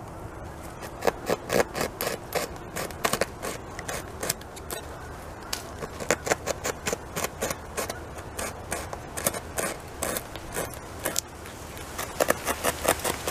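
A beaver gnawing into a fallen tree trunk, heard up close: quick, irregular scraping crunches as its incisors bite and pry chips out of the wood, several a second, in runs with short pauses between them.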